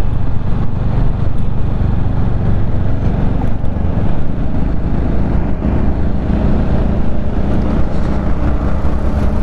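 Motorcycle engine running steadily at cruising speed, with wind and road noise over it.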